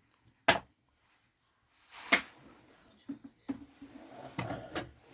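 A few sharp knocks and clicks, four louder ones spread out with softer clicks between them, over a quiet background.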